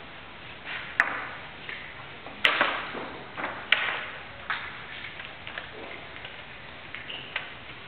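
Chess moves made in quick succession: pieces set down on the board and the digital chess clock's buttons pressed, giving a string of sharp clicks and knocks. The loudest come about one, two and a half and three and three-quarter seconds in, with lighter taps after.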